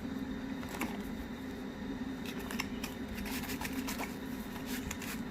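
Scattered light clicks and rustles of small accessories and their packaging being handled, over a steady low hum.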